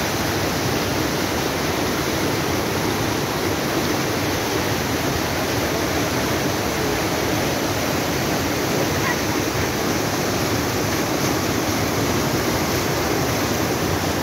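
Rain-swollen creek in flood, muddy whitewater rushing over boulders: a steady, loud rushing.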